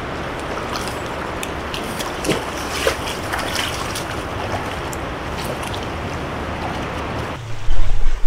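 Fast-flowing river rushing steadily, with a few short sharp sounds in the middle. A little before the end it gives way to loud wind buffeting the microphone.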